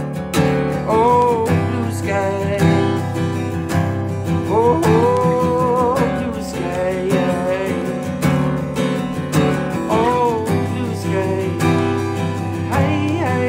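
Steel-string acoustic guitar strummed in a steady rhythm, with a man singing a few held notes over it.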